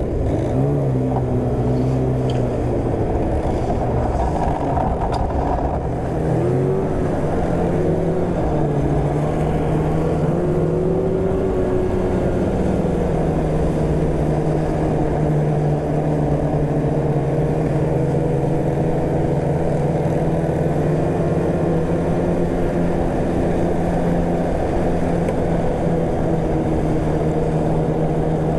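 Polaris snowmobile engine running under way. Its pitch rises and falls with the throttle for about the first twelve seconds, then holds a steady cruising note.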